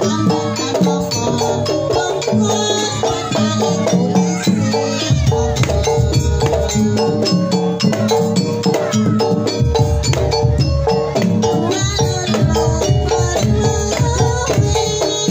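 Jaranan accompaniment music from a gamelan-style ensemble: a repeating metallic melody over drums and a jingling rattle. A deeper low beat comes in about five seconds in.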